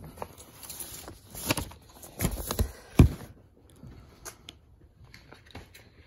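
Handling noise from a vinyl LP and its cardboard album jacket being handled close to the microphone: scattered light taps, knocks and rustles, with one sharper knock about three seconds in.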